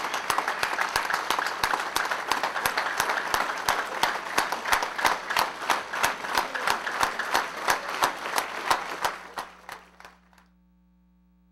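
A standing crowd clapping in unison at a steady beat of about three claps a second, over a wash of applause. The clapping dies away about ten seconds in.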